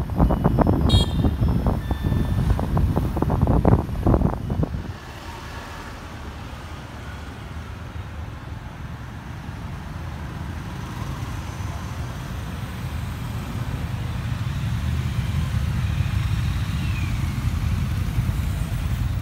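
Wind buffeting the microphone from a moving vehicle for the first few seconds, then steady road traffic as motorbikes and cars drive past, their engine noise swelling near the end as they come closer.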